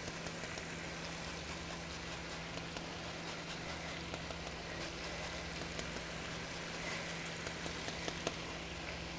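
Chicken breasts frying in vegetable oil in a skillet: a steady, quiet sizzle with small scattered crackles.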